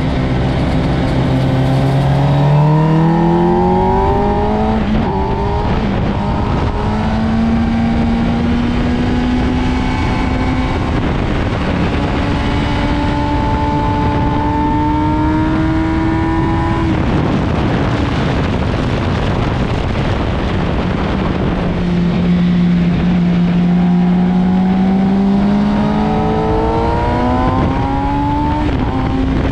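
Motorcycle engine at full throttle on track, climbing in pitch and dropping back at each upshift, over a steady rush of wind. About halfway through it comes off the throttle, then pulls up through the gears again near the end.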